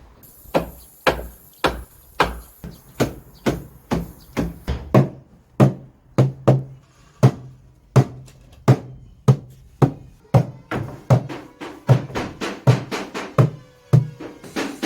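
Background music with a steady percussive beat, about two drum-like strikes a second.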